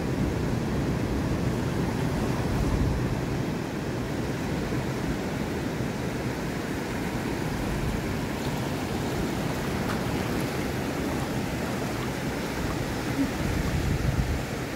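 Ocean surf washing over shallow water at the shoreline: a steady rush of waves.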